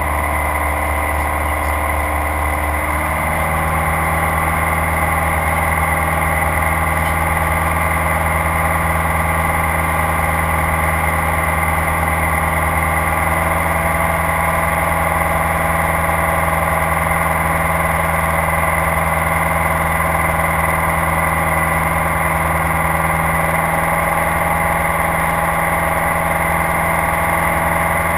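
Light aircraft's engine and propeller running steadily, heard from inside the cockpit in flight. The engine note rises slightly in pitch and level about three seconds in, then holds.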